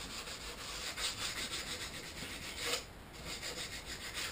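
Cabinet door being scrubbed by hand with TSP cleaning solution: rapid back-and-forth rubbing strokes, about three a second, with a brief pause about three seconds in.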